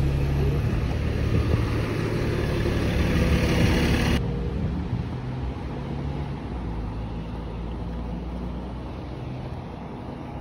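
Steady low rumble of a running vehicle with a wash of road or traffic noise. The high hiss drops away about four seconds in, the rumble fades gradually, and it cuts off suddenly at the end.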